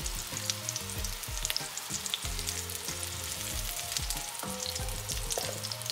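Plant-based meatballs frying in hot oil in an enamelled cast-iron Dutch oven: a steady sizzle with many small pops and crackles, and a few light knocks as metal tongs turn the meatballs.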